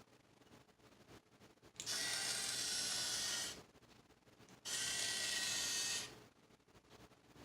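A HexBug spider's small geared motor whirring in two short bursts of about a second and a half each, with a brief pause between them, as it turns the magnet stack.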